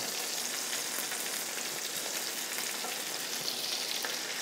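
Butter and canola oil sizzling steadily in an electric frying pan as raw chicken thighs are laid in to brown.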